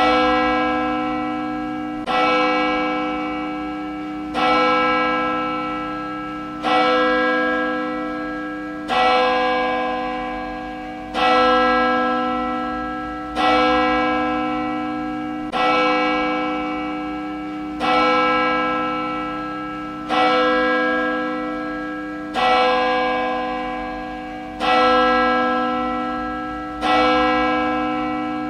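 A single church bell tolling steadily, about one stroke every two and a quarter seconds. Each stroke rings on with the same rich tone until the next.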